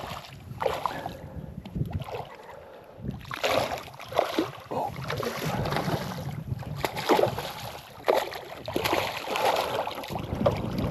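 Irregular rustling, swishing and knocking from handling a fishing rod and reel while a small jewfish is wound in and landed, over wind noise on the microphone.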